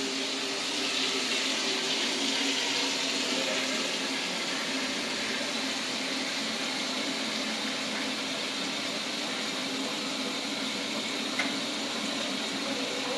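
Steady rush of water noise with a faint hum beneath it, and a single light click near the end.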